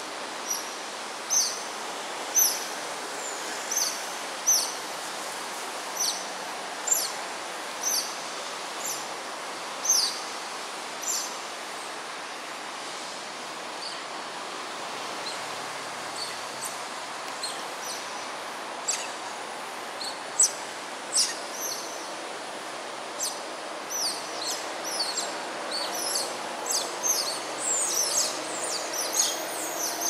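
Short, high chirping calls repeated about once a second, each dropping quickly in pitch. They come faster and overlap in the last ten seconds, over a steady background noise.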